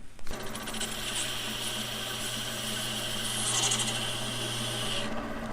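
Turning tool cutting into a spinning resin bowl blank on a wood lathe, a steady scraping hiss over the lathe's running hum, as the foot is cut. The cutting stops about five seconds in while the lathe keeps running.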